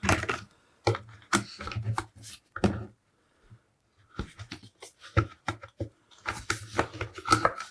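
Plastic parts of a Henry vacuum cleaner's motor housing being handled: irregular clicks, knocks and light rattles as the motor assembly is lifted back out, with a short lull in the middle.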